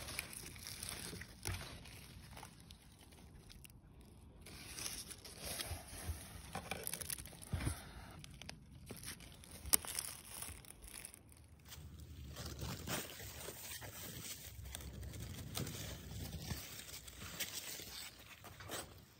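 Rustling and crackling as courgette plant leaves and stems are handled during picking, with scattered clicks and one sharp click about ten seconds in.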